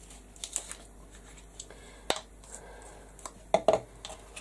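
Small plastic screw lid twisted off a jar of metallic craft paint and set down with the jar on a cutting mat: scattered small clicks, a sharp click about two seconds in and a louder pair of knocks near the end.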